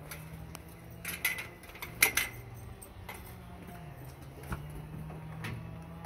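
Galvanized chain-link gate being swung shut and latched: a few rattling knocks about a second in, then a louder metal clank about two seconds in. A low steady hum runs underneath.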